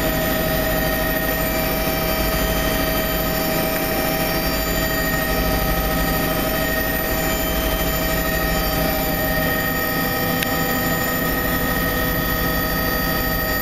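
Helicopter in flight, heard from inside the cabin: a steady engine and rotor drone with constant high whining tones.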